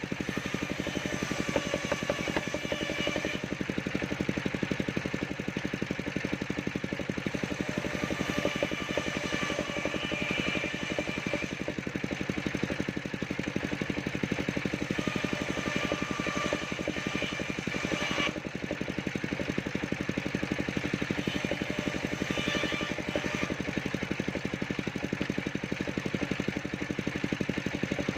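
Engine-driven circular sawmill running steadily, with a higher whine from the blade that comes and goes several times.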